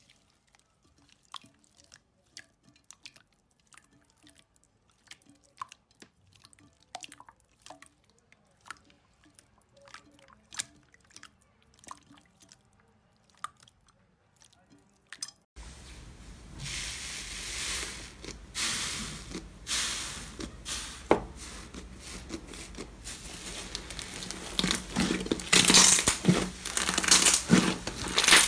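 Hands kneading and squeezing slime, first a clear slime giving scattered quiet wet clicks and pops. About halfway through it switches abruptly to a louder, denser run of crackles and squishes as a thicker slime is pressed, over a steady hiss.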